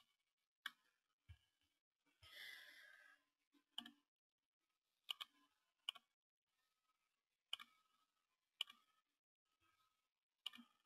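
Faint computer mouse clicks, about seven spaced irregularly, a couple of them quick double clicks, with a soft exhale about two and a half seconds in.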